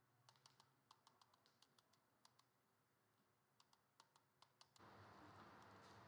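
Faint, irregular light clicks and taps as coils are worked into the slots of a three-phase AC motor stator being rewound, a hand tool knocking on the copper windings and slot insulation. About five seconds in, the clicks stop and a steady hiss comes in abruptly.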